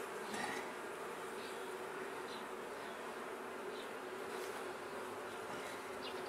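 Honeybees buzzing in a steady, even hum around a colony opened for inspection, with faint short high chirps now and then.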